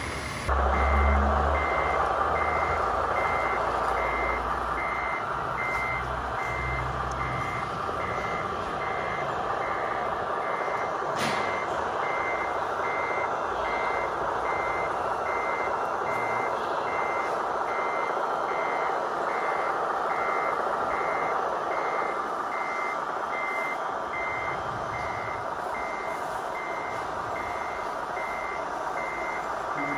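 Reverse-warning beeper of a radio-controlled model truck beeping steadily, a little more than once a second, over a steady mechanical hum from the truck. There is a single sharp click about 11 seconds in.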